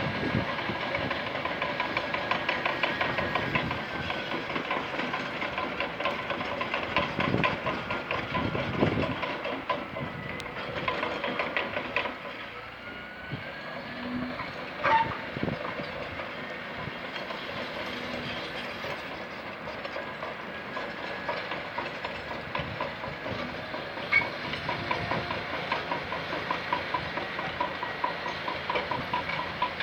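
Bulldozer working: its diesel engine runs under a rapid metallic clatter from the steel crawler tracks, with a sharp knock about fifteen seconds in.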